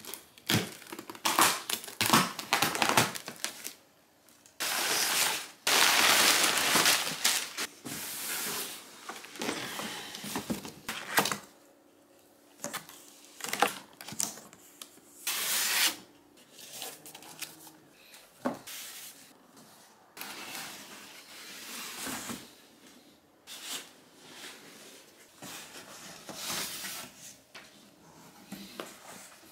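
Unboxing: a box cutter slicing packing tape on a cardboard carton, tape tearing, and cardboard flaps and plastic wrapping rustling and crinkling, in a string of short noisy swipes and knocks. The longest, loudest tearing comes about five seconds in, and the handling is softer and sparser later.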